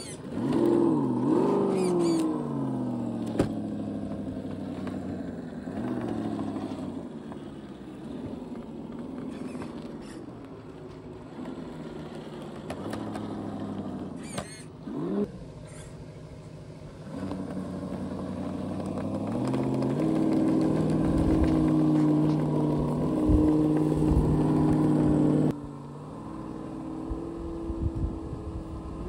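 Electric motor and gear train of a Huangbo 1:10 scale RC crawler whining, the pitch rising and falling with the throttle as it crawls over dirt and rocks, with a few knocks. Near the end a steadier, louder whine cuts off suddenly.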